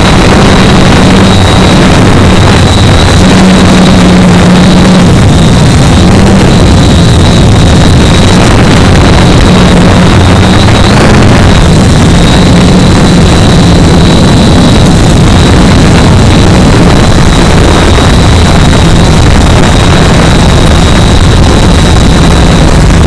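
Quanum Nova Pro (Cheerson CX-20) quadcopter's brushless motors and propellers running steadily, heard loud through the onboard camera, a low hum with a thin steady high whine over a constant rushing noise.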